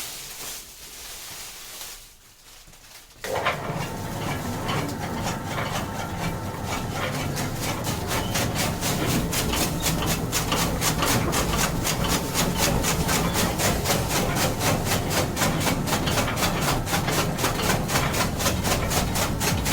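Chaff cutter starting up about three seconds in and chopping fodder, its blades cutting in a fast, even rhythm of several strokes a second over a low steady hum, growing a little faster and louder at first and then holding steady.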